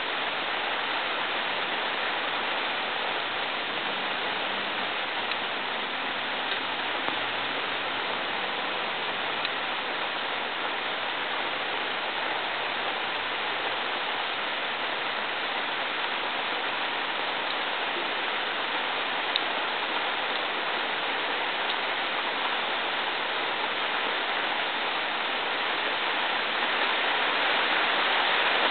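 Steady hiss of rain, with a few faint scattered ticks, growing a little louder near the end.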